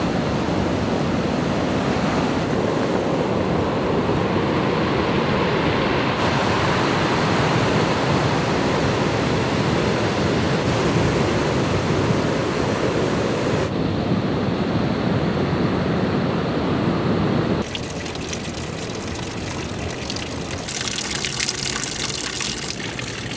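Steady rushing of moving water, changing abruptly in tone and level several times.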